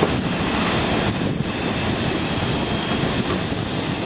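Steady engine roar with a constant rush of noise and no clear rhythm.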